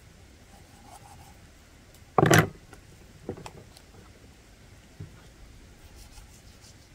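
A short, loud clatter about two seconds in, followed by a few faint clicks, over quiet room tone.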